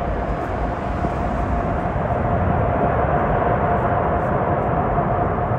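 Jet engines of a large airliner running as it rolls out on the runway after landing: a steady rushing noise with a steady whine.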